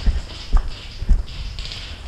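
Footsteps of a person walking, a dull thud about every half second, with rustling of clothing and kit between the steps.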